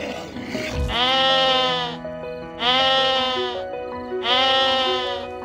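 An animal calling three times, each call about a second long with a steady pitch, over background music.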